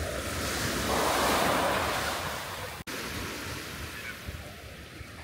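Sea waves breaking on a beach: one wash swells up and fades away in the first two seconds, then a steadier surf hiss, with low wind rumble on the microphone.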